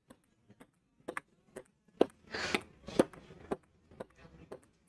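Table-tennis ball clicking back and forth in a rally: light, sharp bounces on the table and paddle hits, roughly every half second.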